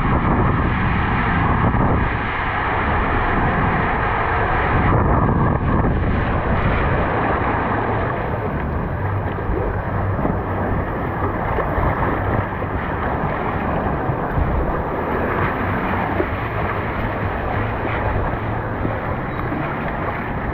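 Water rushing and splashing around a rider's inner tube inside an enclosed water slide tube, then along the open runout channel, with wind noise on the microphone. The high hiss drops away about five seconds in.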